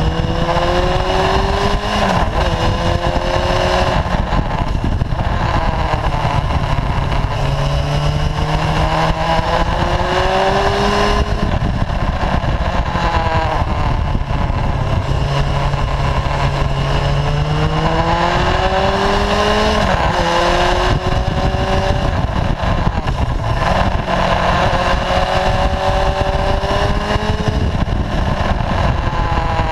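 Sport motorcycle engine heard from a camera mounted on the bike while riding, its pitch climbing slowly for several seconds at a time and falling sharply about two, eleven and twenty seconds in. Steady wind and road rush runs underneath.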